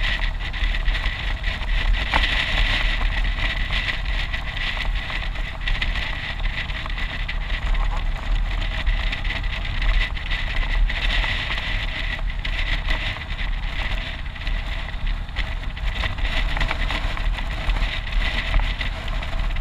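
Wind rushing and buffeting over the microphone of a moving motorcycle, with the bike's engine running underneath at a steady road speed. A thin, steady high whine runs through it.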